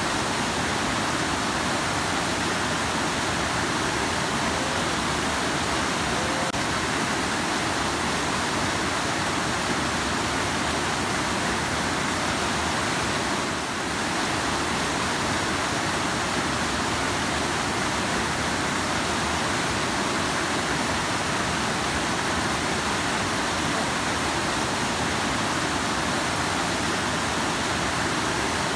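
Rushing river: a steady, even rush of flowing water.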